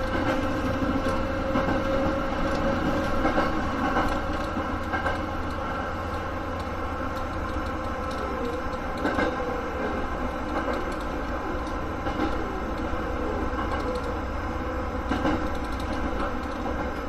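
Sanyo Electric Railway electric train running, heard from inside the car, with a steady rumble and a motor whine that rises slightly in pitch over the first few seconds. A few short knocks of the wheels over rail joints come through the noise.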